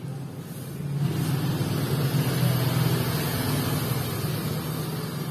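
A motor vehicle engine running, growing louder about a second in and then slowly fading.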